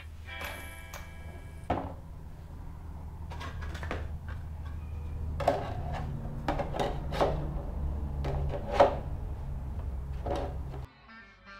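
A steady low hum with about half a dozen sharp knocks and clatters of hard parts being handled; the hum cuts off suddenly near the end.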